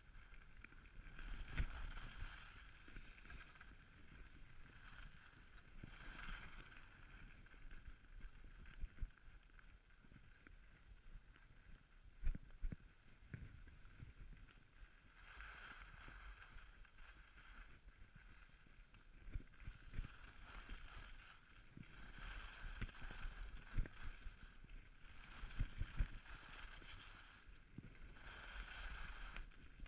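Skis scraping and carving over packed piste snow, the hiss swelling and fading with each turn every few seconds, with wind past the microphone and occasional short knocks.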